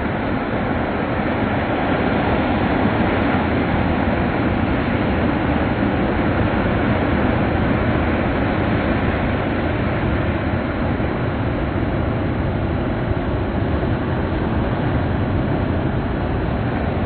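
Steady rush of sea waves breaking and washing on a shore.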